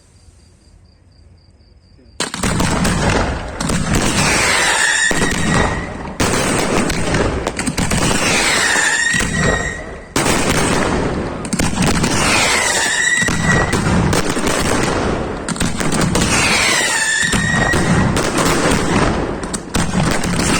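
Fireworks display: after a quiet start, a dense, continuous barrage of bangs and crackling begins suddenly about two seconds in and keeps up without a break. A falling whistle-like tone that settles on one pitch comes back about every four seconds above the barrage.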